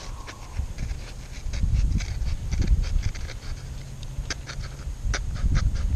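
Dry birch bark and small sticks being broken and handled by hand, a run of irregular crackles and snaps over a low rumble.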